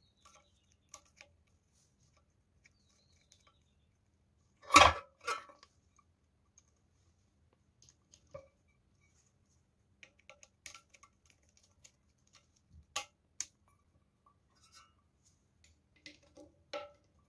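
Scattered small clicks and knocks of hands working on an exhaust fan motor's wiring, a small screwdriver on the terminal block screws and the capacitor being handled, with one sharper knock about five seconds in.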